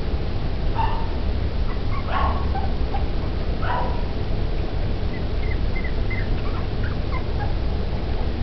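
Puppies yelping a few times, then giving many brief high squeaks and whimpers, over a steady low rumble.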